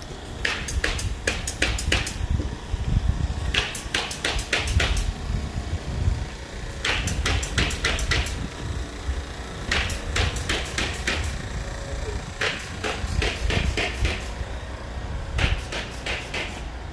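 Bursts of rapid knocking, like hammer blows, come roughly every three seconds, each a quick run of five to eight sharp strikes. A steady low rumble runs underneath.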